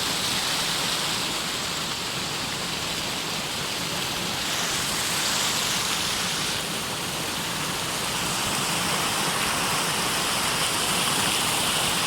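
Stream water gushing and bubbling out from under a dirt road where it passes beneath it: a steady rushing.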